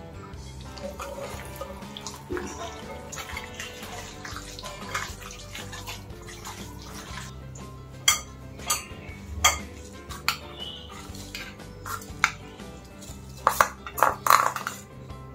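Background music with scattered sharp clinks of kitchenware. The loudest clinks come near the end, as a spoon scrapes paste out of a small steel bowl into a glass bowl of marinating chicken.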